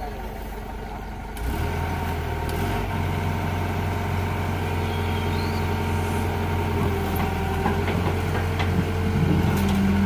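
Sumitomo SH120 A1 hydraulic excavator's diesel engine running, then stepping up to a heavier, louder note about a second and a half in as the hydraulics are put under load. A few metallic clanks come near the end.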